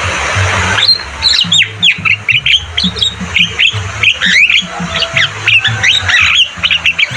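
Javan myna calling: a fast, dense run of harsh squawks and short sliding whistles starting about a second in. Low pulsing tones run underneath.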